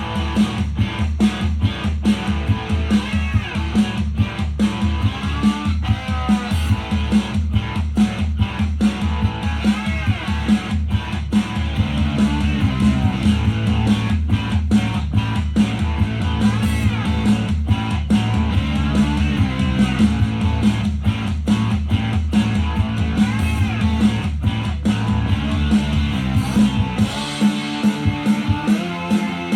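Guitar-driven pop song with a steady beat and heavy bass, played back through an Xdobo Sinoband Challenger 2020 portable Bluetooth speaker. The bass drops out near the end.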